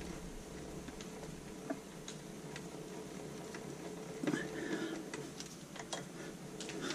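Faint, scattered light clicks and taps a second or so apart, from hand work with tools and metal parts on a surface grinder, over a low steady hum.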